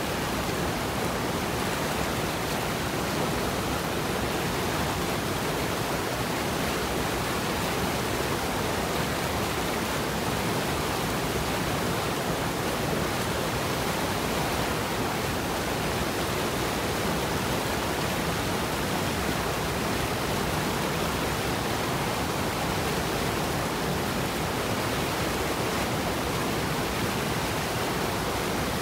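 Small waterfall pouring over a rock ledge into a plunge pool: a steady, unchanging rush of falling and churning water.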